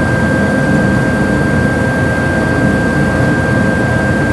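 Steady mechanical drone with a constant high whine over a low rumble, unchanging throughout.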